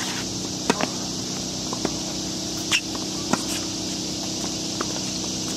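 Tennis racket striking the ball on a serve, a sharp pop about three-quarters of a second in, followed by several fainter pops and taps of the ball bouncing and being hit at the far end of the court. A steady high hiss and a low hum lie underneath.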